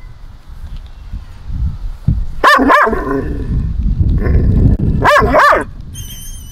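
Saluki barking on the leash: two quick barks about two and a half seconds in and two more about two and a half seconds later. It is reactive barking by a dog-aggressive dog during an encounter with another dog.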